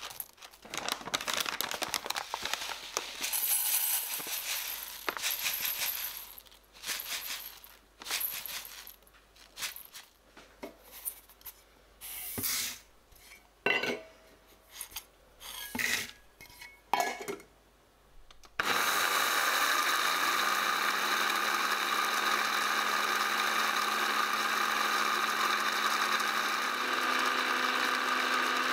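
Dry seeds poured and rattled into a plastic blender jar in a series of short, uneven rattles. About two-thirds of the way through, the blender motor starts and runs steadily, grinding the seeds, with a hum that steps up in pitch.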